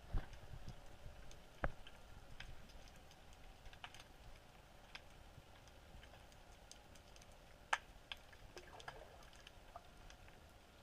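Faint underwater clicking: scattered sharp ticks at irregular intervals, with two louder knocks in the first two seconds and one sharp click about three quarters of the way through.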